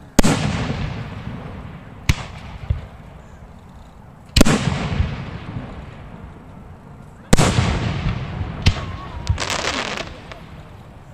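Aerial firework shells bursting at close range: three loud booms, right at the start, about four seconds in and about seven seconds in, each rolling off over a couple of seconds. Smaller sharp pops and cracks come between them.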